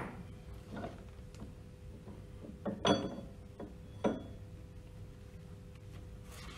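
Light metal knocks and clinks as a steel split-coupling half is worked loose from the pump shaft by hand, with a knock at the start and two sharper ringing clinks about three and four seconds in, over a faint steady hum.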